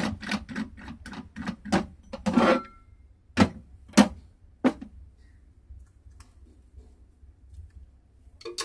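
Hand handling of a flash stamp machine's press and plates: a quick run of even clicks, about four a second, for the first two and a half seconds, then three sharp knocks as the acrylic plate and foam are lifted out and set down, and one more knock near the end.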